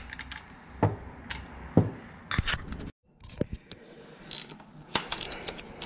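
Ratchet and socket being fitted onto and turned on a motorcycle fork cap: scattered sharp metal clicks and light scraping, with a quick run of clicks near the end.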